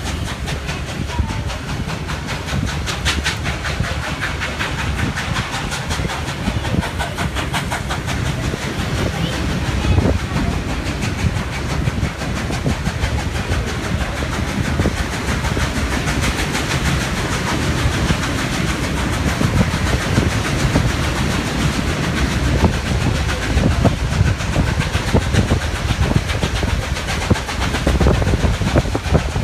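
Steam-hauled passenger train (locomotives 5917 and 3642) running, heard from an open carriage window: steady wheel-and-rail rumble with clickety-clack over rail joints and points, and some steam hiss. It grows a little louder and more clattery near the end.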